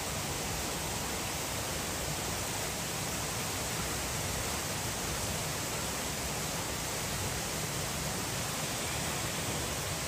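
Steady, even hiss of falling water, with no change in level.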